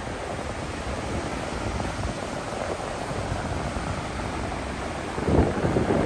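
Ocean surf breaking and washing up the beach in a steady roar. A louder wave crashes about five seconds in.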